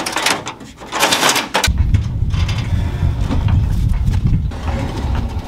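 Wooden boat deck scraping and rubbing against a jon boat's hull as it is lifted and pulled out, in two rough bursts near the start, followed by a steady low rumble.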